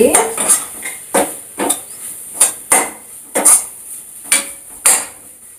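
A spatula scraping and knocking against a pan while stirring thick masala paste, in short uneven strokes about two a second.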